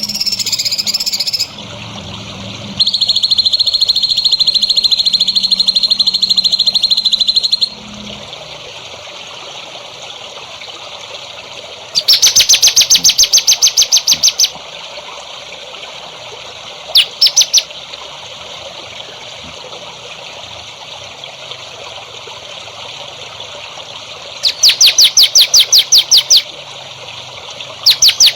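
Songbird calling over trickling water: a long, steady buzzing trill, then several bursts of fast repeated high notes, the longest about two seconds, with one near the end.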